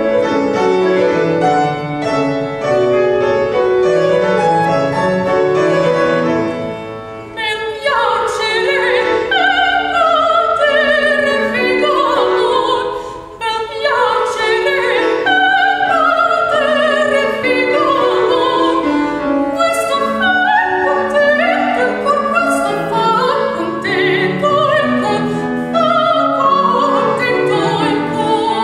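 Grand piano playing an introduction alone, then a female classical singer entering about seven seconds in and singing an operatic line with vibrato over the piano accompaniment.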